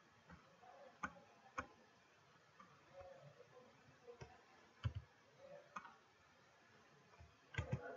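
Several sharp, isolated clicks of computer mouse buttons and keys over faint room tone, the loudest about five seconds in and a quick cluster near the end.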